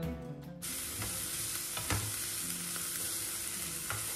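Chopped onions and coriander leaves sizzling as they fry in a non-stick frying pan, stirred with a wooden spatula, with a couple of short knocks of the spatula in the pan. The sizzle starts abruptly about half a second in.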